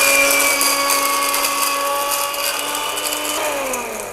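Electric blender's small dry-grinding jar running at full speed, grinding whole spices to powder: a steady motor whine over the gritty hiss of the spice in the jar. About three and a half seconds in it is switched off and the whine falls in pitch as the motor spins down.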